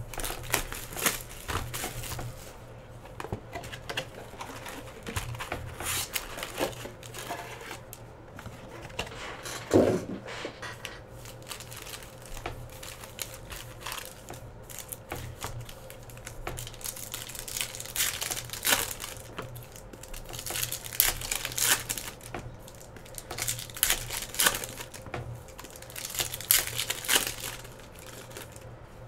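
Trading-card pack wrappers being torn open and crinkled by hand, in quick rustling bursts, with a single knock about ten seconds in.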